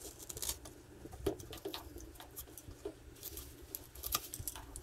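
A blade cutting through a corrugated plastic air-intake hose, making faint, irregular clicks and crackles.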